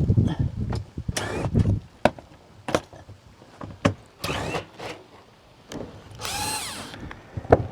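A cordless drill on screws in metal roofing sheets, running in short bursts with a brief whine that rises and falls, among scattered clicks and knocks.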